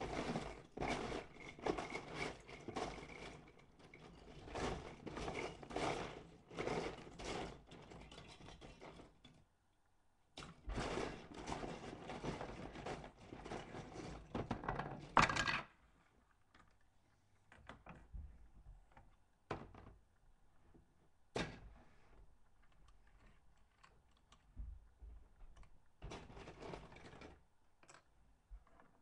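Loose plastic Lego bricks rattling and clattering while being rummaged through, in two long spells with a sharp knock at the end of the second, then scattered single clicks and taps.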